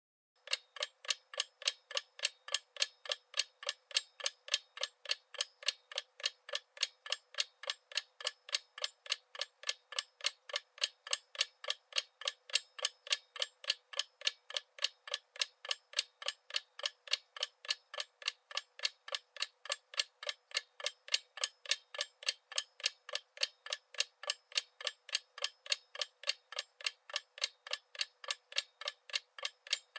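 Clock ticking steadily, a rapid, even run of sharp ticks.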